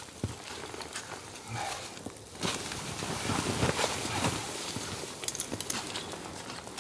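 Boots stepping and crunching in shallow snow with scattered knocks. About two and a half seconds in, a louder rustling starts suddenly as the nylon tent fly is handled, with small clicks and crinkles through it, then eases off.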